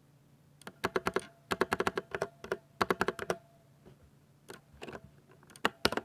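Typing on a Ducky 60% mechanical keyboard with silver linear switches: a quick run of keystrokes from about a second in, a brief pause, then a few scattered keystrokes toward the end.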